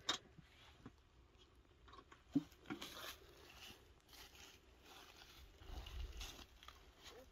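Faint knocks of quinces dropped into a metal bucket and the bucket being handled, with one sharper clank about two and a half seconds in. Then rustling footsteps through weeds and dry leaves.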